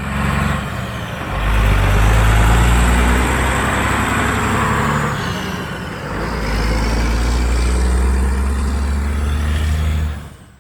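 Large diesel engine of heavy harvest machinery running hard, with a deep steady engine note and a rushing machine noise over it. It swells, dips about six seconds in, then rises again before fading out.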